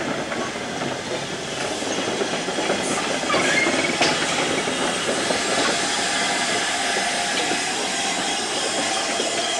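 LMS 8F 2-8-0 steam locomotive No. 8431 moving slowly alongside the platform: a steady hiss of steam with clanks from the wheels and motion, the sharpest clank about four seconds in.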